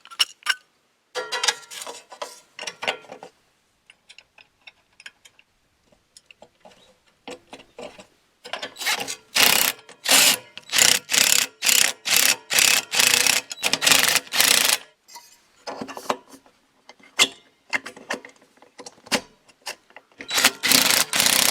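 Hand ratchet wrench clicking in runs of quick back-and-forth strokes while bolts are tightened on a combine's chaff blower tube. There are a few strokes early, a long busy run in the middle, a pause, and more strokes near the end.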